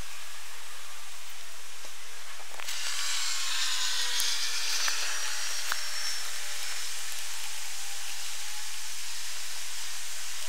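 Steady hiss of outdoor background noise played back at eight times speed, with scattered faint clicks. It grows slightly louder after a cut about three seconds in, where a few faint falling whistle-like tones run for several seconds.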